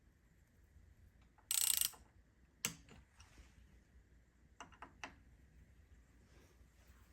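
Torque wrench tightening the mountain bike's stem bolts. There is a short burst of fast ratcheting about a second and a half in, then a sharp click, and a few lighter clicks near the middle as the bolts are brought to torque.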